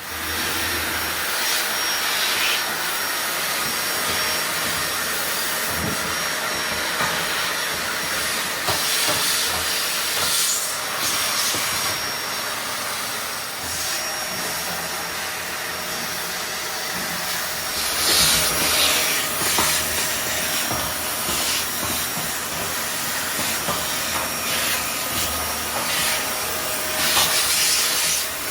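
Vacuum cleaner running steadily, a loud suction hiss with a thin high whine, with a few louder surges.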